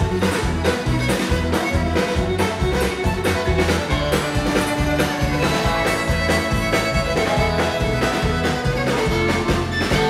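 Live country band music with a fiddle lead over electric and acoustic guitars, bass guitar and drums keeping a steady beat; no vocals.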